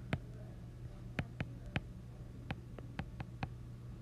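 Stylus tip tapping and clicking on a tablet's glass screen while words are handwritten: about nine sharp, irregular clicks over a faint low hum.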